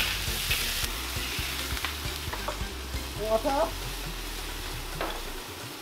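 Onion and sweet peppers sizzling in a hot wok as they are stir-fried, with the utensil now and then clicking and scraping against the wok.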